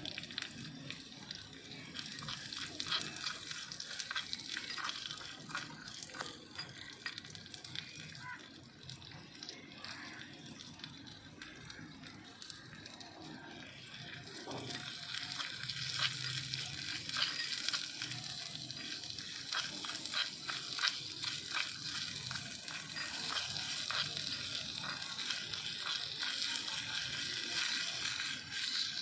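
Food frying in hot oil in a small pan, a steady sizzle full of small crackles that grows louder about halfway through.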